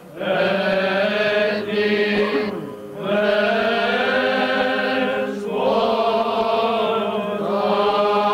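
Eastern Orthodox liturgical chant in Church Slavonic sung by male voices: long melodic phrases over a steady held low note, with short pauses for breath between phrases.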